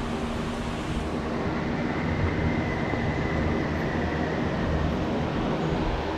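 Steady rumbling background noise with a low hum. A faint high tone comes in about a second and a half in and fades out around five seconds.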